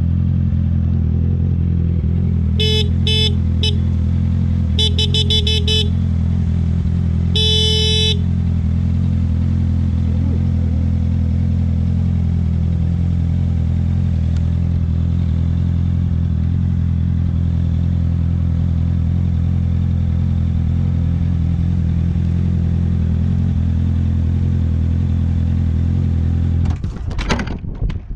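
A sport motorcycle's engine idling steadily, with a horn honking over it in three goes: a few short beeps about three seconds in, a rapid string of short beeps about five seconds in, then one longer honk about eight seconds in. Near the end the steady idle breaks off into uneven, rougher noise.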